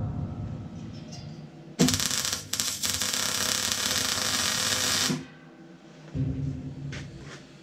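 MIG welding arc crackling steadily for about three seconds as a bead is run along a seam of the steel hopper, starting about two seconds in and cutting off suddenly. A lower hum sounds before and after the weld.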